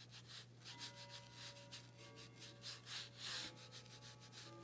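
Faint soft rubbing of a small watercolour brush stroking paint onto textured watercolour paper, in a run of short repeated strokes that grow a little louder around three seconds in.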